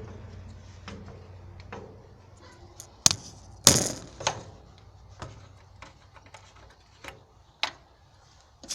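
Scattered, irregular clicks and knocks of hands handling objects, the loudest a sharp knock about four seconds in, with a low steady hum in the first couple of seconds that then fades.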